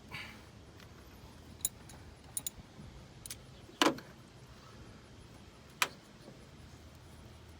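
A few sharp metallic clinks and taps from hand tools and parts being handled during a spark plug change, about seven scattered strikes with the loudest about four seconds in.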